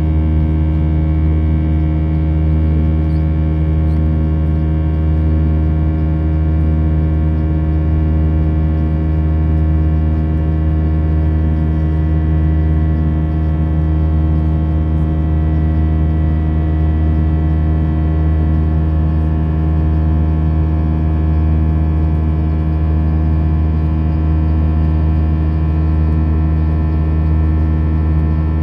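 Steady drone inside the cabin of an Airbus A320 airliner in flight: the engines' deep hum with several steady tones over a rush of airflow, unchanging throughout.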